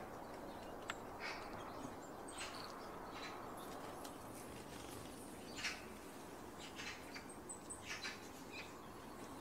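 Faint scattered bird chirps and short, thin high calls from small songbirds, coming closer together in the second half, over a steady background hiss.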